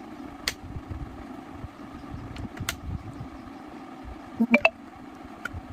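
A short phone notification chime about four and a half seconds in, the loudest sound, over a steady background hum. A few sharp clicks come earlier.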